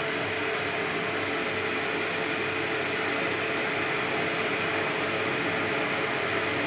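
Heinner Imenium 70 electric kettle heating water as it starts to boil: a steady rushing noise with a faint steady hum underneath.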